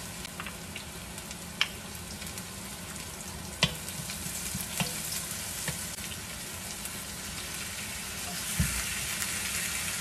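Food sizzling in hot oil in a nonstick wok, a steady frying hiss broken by a few sharp clicks. The sizzle gets louder near the end as raw ground beef is dropped into the pan.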